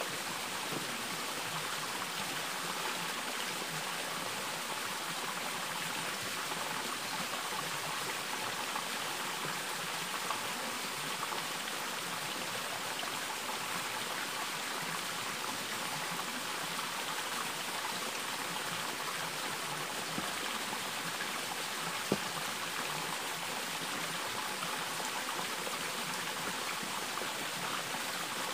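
Steady rush of flowing stream water, even and unbroken, with a single sharp click about three quarters of the way through.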